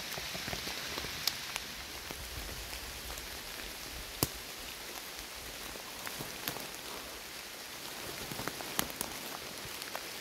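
Steady rain falling on wet forest leaf litter, with scattered sharp ticks of drops, the loudest about four seconds in.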